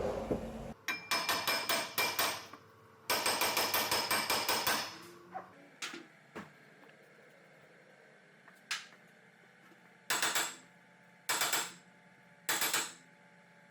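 Hammer rapping on a rusty steel brake part to knock off rust build-up: two runs of quick metallic taps at about five or six a second, then a few single knocks and three short bursts of tapping near the end.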